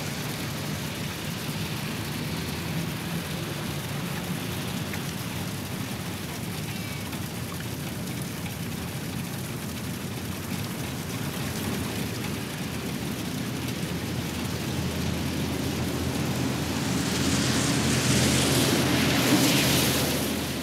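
Steady rain falling on wet pavement and splashing into a puddle, with a low rumble underneath. It grows heavier about three quarters of the way through, then fades out at the end.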